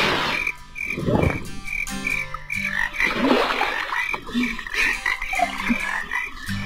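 Frogs croaking at a night pond, a cartoon sound effect: a high chirp repeating about two to three times a second over lower croaks, with water splashing a few times.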